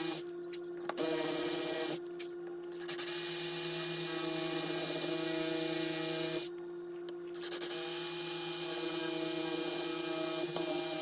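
Electric drill running, its bit boring into the old wooden handle stub left in a hatchet head's eye. It stops and starts again three times: briefly near the start, about two seconds in, and for about a second past the six-second mark.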